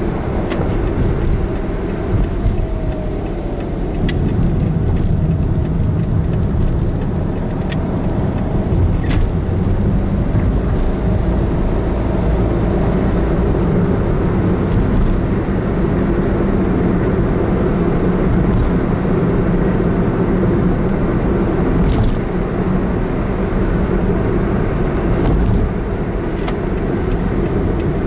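A car driving, heard from inside the cabin: steady engine hum and road and tyre noise. The engine note grows stronger about four seconds in, and a few brief sharp clicks come through.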